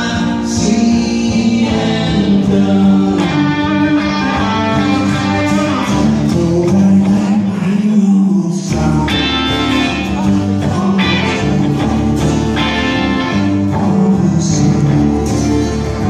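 A man singing a song while playing an acoustic guitar.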